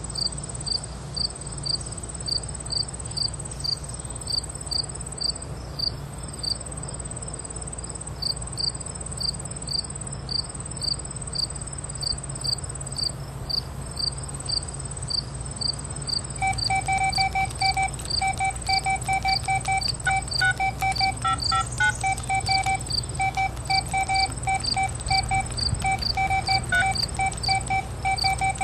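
Crickets chirping in an even rhythm, about two to three chirps a second, over a thin high continuous trill. About halfway through, a second, lower call joins in with quicker runs of pulses.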